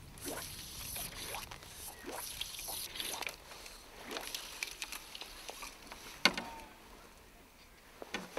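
Fly line swishing through the air in a series of short whooshes as a sinking line is false-cast and shot out with a double haul. There is one sharp tap about six seconds in.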